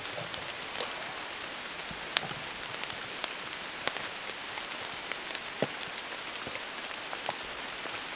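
A steady hiss with scattered short, sharp ticks.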